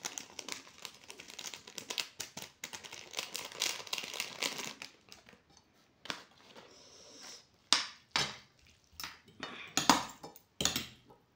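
A small plastic-foil packet crinkling as flakes are shaken out of it onto the noodles. From about eight seconds in, a fork and spoon clink sharply against the plate as the noodles are tossed.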